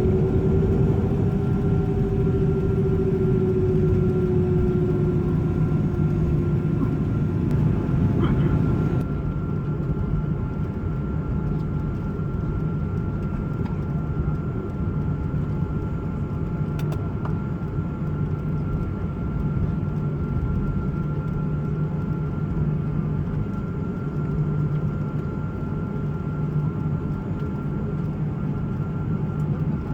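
Boeing 737 cabin noise while taxiing after landing: a steady engine hum and rush of air, with a tone that fades out about seven seconds in. About nine seconds in, the higher hiss drops away and the sound becomes a little quieter.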